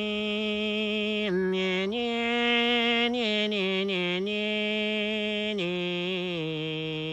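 A slow, chant-like melody of long held notes, each a second or more, stepping up and down in pitch and wavering slightly in places.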